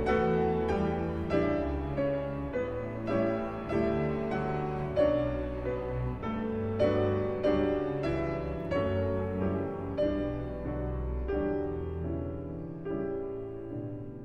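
Background piano music: gentle notes over held chords, softening toward the end.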